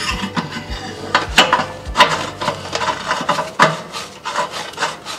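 A new electric heating element being threaded by hand into the tank port of a Suburban RV water heater. Metal threads and a gloved hand scrape and rub against the metal, with irregular clicks.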